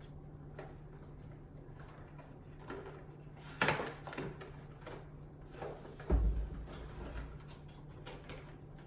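Unpacking a stoneware tray by hand from its white paper packaging: rustling and scattered knocks, with a sharper knock a little before the middle and a dull thump about six seconds in, over a steady low hum.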